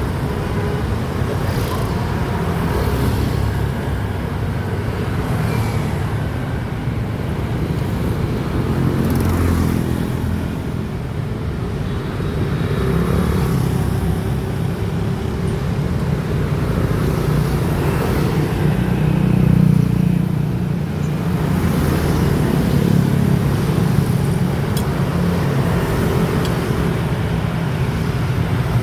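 Motor vehicle running along a road: steady low engine and road rumble that swells and eases, with no sharp events.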